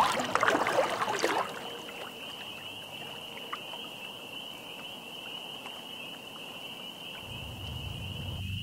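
Water splashing loudly as a person swims in a lake, settling after about a second and a half into gentle lapping and small trickles around her body. A steady high-pitched whine runs throughout.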